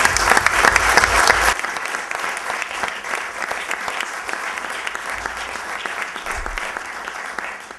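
Audience applauding, loudest in the first second and a half, then steady and easing off toward the end.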